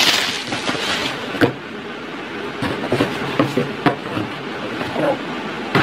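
Plastic bubble wrap rustling and crinkling as it is handled and pulled out of a cardboard box, loudest about the first half-second, with scattered small clicks and knocks from the box throughout.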